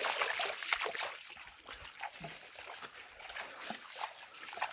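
Water trickling and splashing, with scattered small knocks and clicks.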